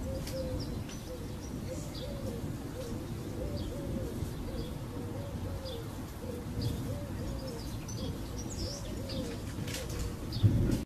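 A dove cooing over and over in a repeated low phrase, with small birds chirping high above it. A low rumble runs underneath, with a brief loud low thump near the end.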